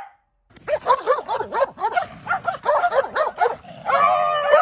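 Dog vocalizing in an odd, talkative way: a quick run of short yelping notes, each rising and falling in pitch, about four to five a second, then one longer held whine-like note near the end.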